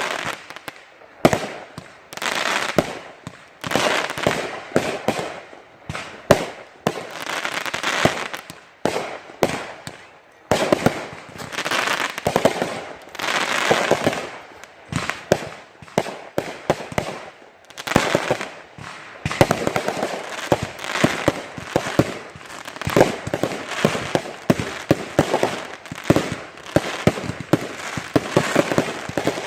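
Consumer fireworks going off: rapid sharp bangs and crackling in repeated clusters, one volley after another with only short gaps.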